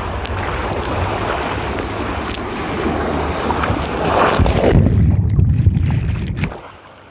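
Water rushing steadily down a water slide under a rider's feet, then a splash into the pool about four seconds in. It is followed by a muffled, low underwater rumble that cuts off about six and a half seconds in.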